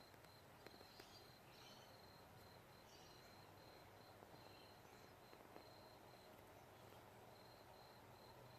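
Near silence: faint, high insect chirping pulsing rapidly, pausing briefly past the middle, with a few faint ticks.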